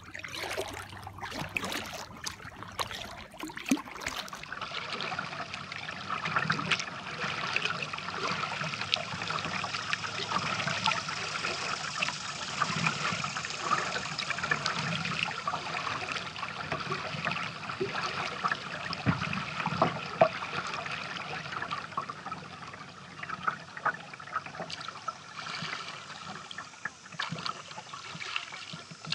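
Water trickling and lapping against the plastic hull of a kayak moving across a lake, with small irregular splashes from paddling. A few sharp knocks come in the first few seconds.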